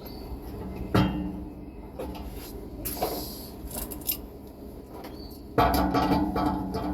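Tools and parts being handled, with scattered knocks and clatter. There is a sharp knock about a second in, a short rushing noise around three seconds, and busier rattling and clattering from about five and a half seconds.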